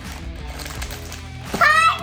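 Background music with a steady beat. Near the end a child's high voice breaks in loudly, exclaiming the name of a toy.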